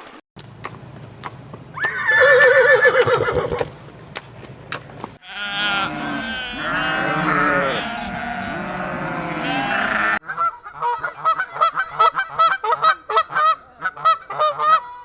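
Farm animals calling one after another: a single call about two seconds in, several overlapping calls from about five seconds, then a quick run of short repeated calls in the last five seconds.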